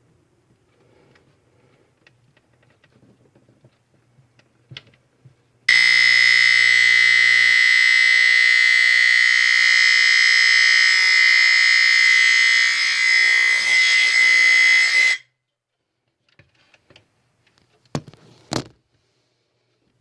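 Nortron TR88 AC-powered smoke detector sounding its alarm: one loud, continuous high-pitched tone that starts about six seconds in and cuts off suddenly after about nine seconds. Faint handling clicks come before it, and two sharp clicks near the end.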